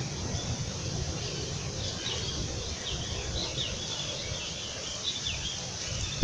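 Small birds chirping in the trees: a run of short, high calls and quick falling notes starting about two seconds in and lasting a few seconds, over a steady low rumble.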